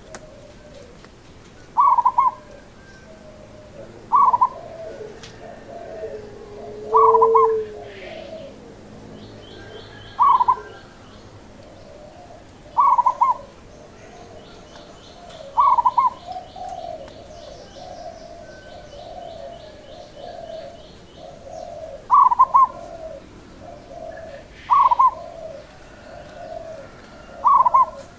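Zebra dove (perkutut) cooing in short repeated phrases, one every two and a half to three seconds, with softer lower cooing notes running between them. Faint high chirping trills sound in the background partway through.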